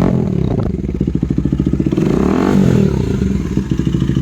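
KTM Duke 250's single-cylinder four-stroke engine running through an Akrapovic slip-on exhaust, revved up and back down twice: once at the start and again about two seconds in.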